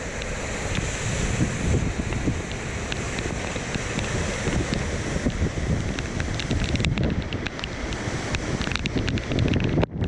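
Rushing floodwater in a swollen creek, a steady hiss, with gusting wind buffeting the microphone.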